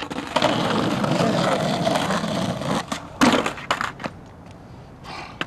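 Skateboard rolling for about two and a half seconds, then several sharp clacks of the board hitting the ground, as on a trick attempt.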